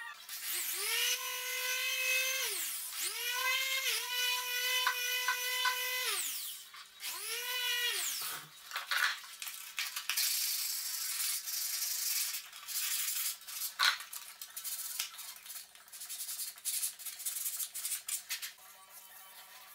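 A small electric power tool's motor whines up to speed, runs and winds down three times in short bursts. Then a sanding sponge is rubbed back and forth over a filled joint in painted skirting board, a rasping scrub with small knocks.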